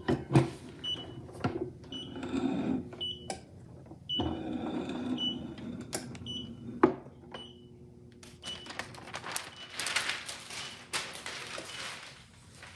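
Heat press timer beeping, a short high beep repeating about once a second, signalling that the press time is up. The press handle is worked with a clunk right at the start, another knock comes about 7 seconds in, and paper rustles loudly from about 8 to 12 seconds as the transfer sheet is handled.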